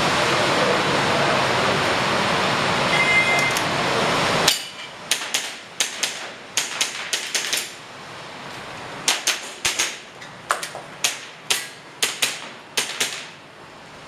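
Airsoft gas pistol firing a rapid string of about twenty sharp cracks, in irregular groups of two or three, during a timed practical-shooting course of fire. Before the shots there is a steady rushing noise that cuts off suddenly about four and a half seconds in, and a short electronic beep, typical of a shot timer's start signal, a little earlier.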